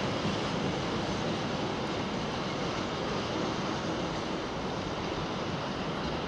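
Steady rumble of a freight train's wagons rolling along the track, slowly fading.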